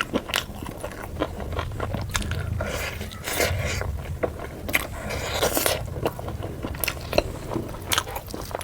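Close-miked eating sounds: chewing and biting puri with chicken curry, with irregular wet mouth clicks and smacks and some scraping.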